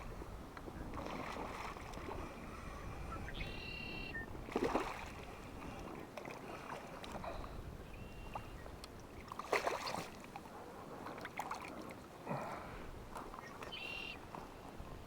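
Water sloshing and splashing around a float tube, with three louder splashes about a third of the way in, two-thirds in and near the end. Two short bird calls come in, one near the start and one near the end.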